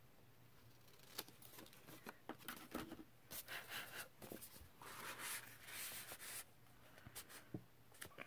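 Soft rustling and scraping of file-folder card being handled and trimmed, with scattered light clicks and two short stretches of rubbing about three and five seconds in.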